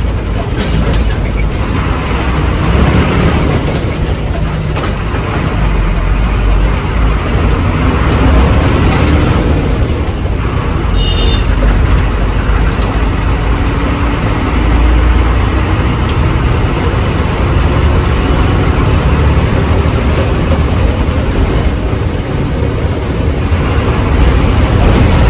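Haryana Roadways bus on the move, heard from inside: steady engine drone and road rumble, the engine note slowly rising in the second half as it gathers speed. A brief high beep sounds about eleven seconds in.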